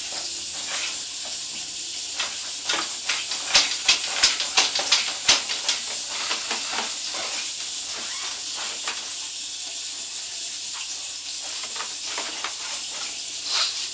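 Sewer inspection camera being pushed down a 4-inch cast iron drain line: a steady hiss with a run of sharp clicks and knocks as the push cable is fed in. The clicks are thickest between about three and a half and five and a half seconds in.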